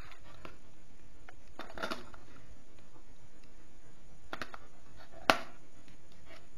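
Plastic clicks from an AA battery being handled and pressed into a quartz wall clock's battery compartment, ending in a sharp snap about five seconds in as the battery seats.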